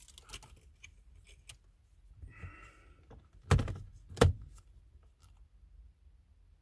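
Light clicks and rustling of parts being handled around a car's gear lever, then two dull knocks less than a second apart, just past the middle.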